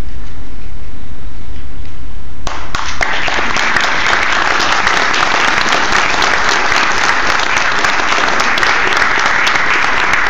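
Audience applauding. It breaks out suddenly about two and a half seconds in, over a low hum, and continues steadily.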